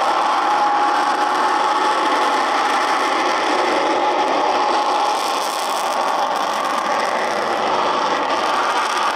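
General Electric J79 afterburning turbojet of an F-104D Starfighter running at full power for takeoff. It makes the J79's characteristic howl, a steady whining tone over the loud jet roar, and the tone fades about halfway through.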